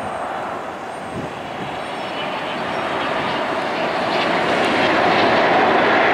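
Air France Boeing 777 on final approach with landing gear down, its jet engines making a steady roar that grows steadily louder as the airliner comes closer.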